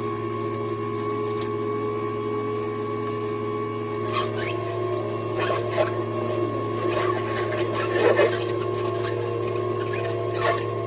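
Electric juicer motor running with a steady hum. From about four seconds in, leafy greens crackle and crunch in irregular bursts as they are crushed in the juicer.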